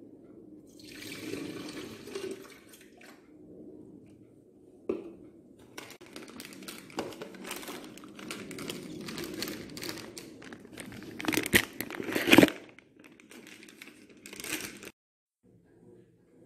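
A foil sachet of shake powder crinkling as it is handled and torn open, in irregular bursts, loudest about eleven to twelve seconds in.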